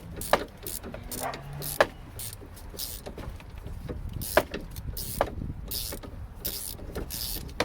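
16mm ratchet spanner being worked back and forth to undo the nut on a car's suspension drop link: short bursts of ratchet clicking and metal taps, spaced irregularly.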